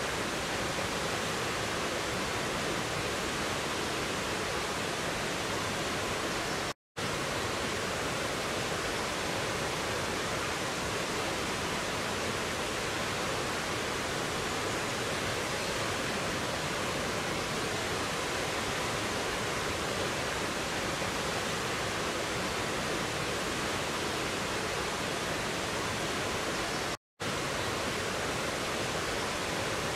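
Mountain stream rushing over rocks and a small waterfall: a steady, even rush of water. It is cut by two brief drop-outs to silence, one about seven seconds in and one near the end.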